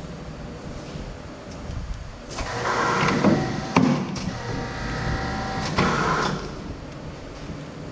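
Triumph 6550A electric paper cutter making a power cut: the machine runs up about two seconds in, gives a sharp click partway through as clamp and blade come down, hums steadily, then surges again as they return before it dies down.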